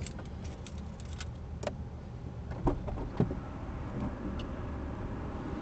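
Inside a stopped car: a low steady rumble with a few scattered clicks and knocks, the loudest two about three seconds in.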